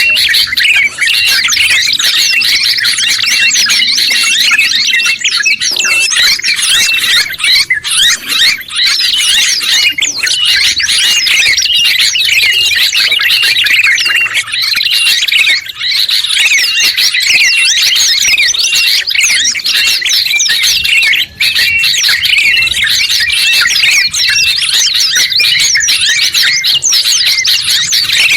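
A dense, continuous chorus of songbird chirps and trills, many calls overlapping, from a combined recording of yellow-vented bulbul, sooty-headed bulbul, prinia and white-eye songs used as a tutor recording for cage birds.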